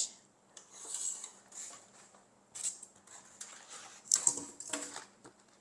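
Removable cooking plates of a 3-in-1 sandwich, waffle and grill snack maker clinking and clattering as they are handled, in a few separate bursts.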